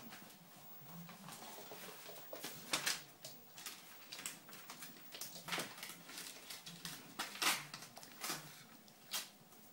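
Three-month-old poodle puppy worrying a newspaper on a wooden floor: irregular rustling and scraping of the paper, broken by several sharper crackles.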